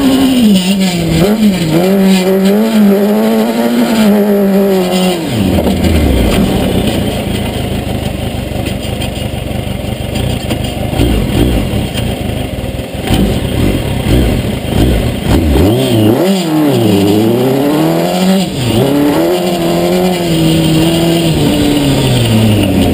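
Kawasaki ZX-10R inline-four motorcycle engine in a sand-rail buggy, revving up and down under the throttle while driving on dirt. Its pitch falls sharply about five seconds in, it runs lower and rougher for a stretch, then revs up and down again in the last several seconds.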